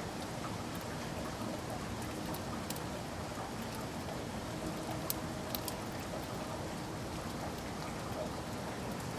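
Heavy rain on a window pane: a steady hiss of rain with a few sharp drop taps, the loudest about five seconds in.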